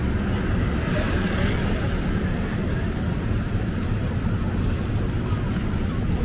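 City traffic on a rain-wet street: a steady rumble of engines with the hiss of tyres on wet pavement, swelling slightly as a vehicle passes about a second in.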